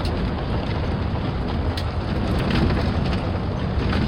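Steady wind noise buffeting the microphone, a low rumble with a few faint crackles.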